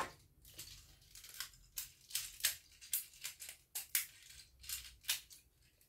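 Hard plastic parts of a transforming robot toy clicking and clattering as they are handled: a series of short, sharp clicks, irregular, about two or three a second.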